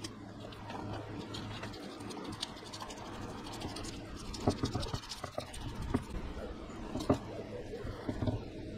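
Fillet knife scraping and cutting along a striped bass's backbone and ribs on a wooden board, with a few sharp knocks in the second half as the blade and fish hit the board.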